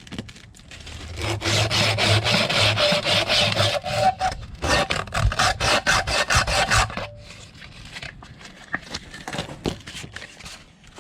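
Hand rubbing paint off a metal door hinge with quick back-and-forth strokes, then quieter scattered scraping and handling for the last few seconds.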